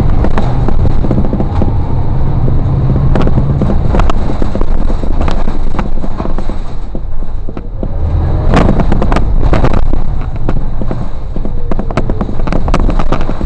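Ride noise of a moving city bus: a heavy low engine and road rumble with frequent sharp knocks and rattles.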